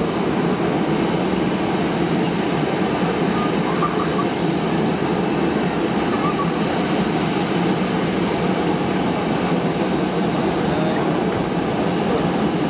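Twin jet engines of a taxiing Boeing 737 airliner running steadily at taxi power, a constant even roar and hiss.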